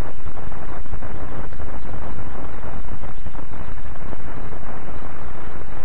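Steady hiss and low rumble of an old optical film soundtrack: even, unchanging noise with no distinct sounds in it.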